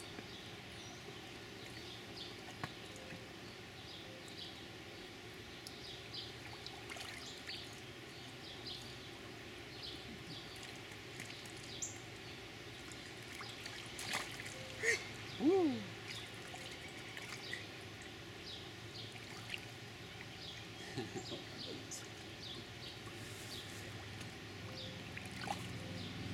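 Light splashing and trickling of shallow water in an inflatable kiddie pool as a toddler moves about in it, in small scattered ticks over a steady low background. About halfway through comes a brief, louder sound that slides down in pitch.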